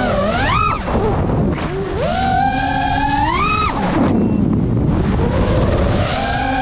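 FPV racing quadcopter motors whining as the throttle changes: the pitch climbs steadily for about two seconds, drops sharply a little before the roll, then rises again, over a rushing of prop wash and air.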